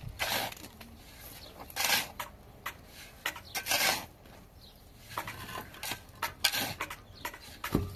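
Steel shovel scraping and scooping through dry sand and cement, a short gritty scrape every second or two as the pile is turned over for mixing.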